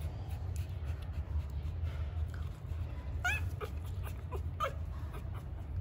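Newborn puppies squeaking and whimpering in short, high, wavering cries, a cluster of them about halfway through, over a steady low hum.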